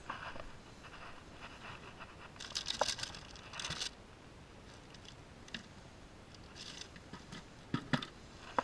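Rummaging through fishing tackle in a plastic bucket and handling a plastic bag: scattered rustles and scrapes, busiest about two and a half to four seconds in, with a few sharp clicks.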